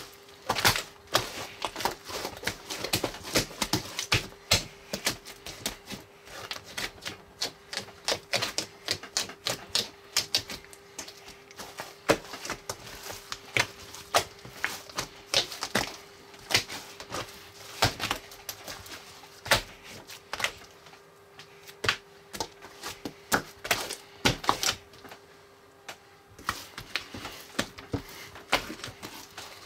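Giant foam-bead slime being squished and worked by hand, giving dense, irregular pops and crackles, several a second, with a short lull near the end. A faint steady hum runs underneath.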